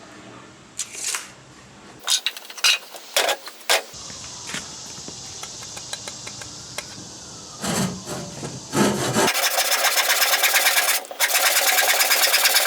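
A few sharp knocks, then from about nine seconds in a tool rasps on wood in a fast, even rhythm, like sawing or sanding.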